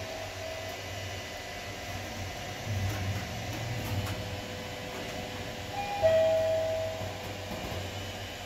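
Mitsubishi GPS-III elevator arrival chime: a high-then-low two-note ding-dong about six seconds in, the loudest sound, with a fainter one at the very start. Under it the car gives a steady hum.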